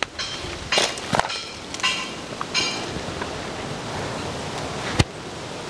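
Footsteps crunching on a rough gravel road at a walking pace for the first few seconds, then a steady hiss of wind on the microphone. A single sharp click about five seconds in.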